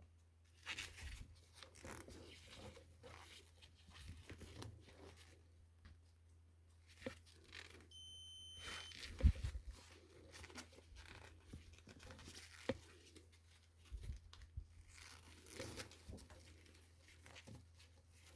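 Hands handling small parts and wiring: scattered light rustles, clicks and knocks over a low steady hum, with one short electronic beep about eight seconds in.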